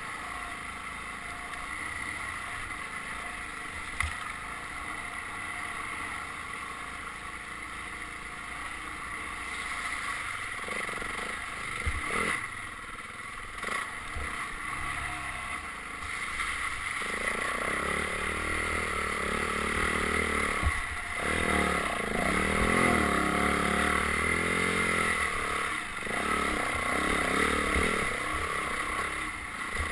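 Dirt bike engine running while being ridden along a trail, its pitch rising and falling with the throttle, louder and more varied in the second half. A few sharp knocks are heard.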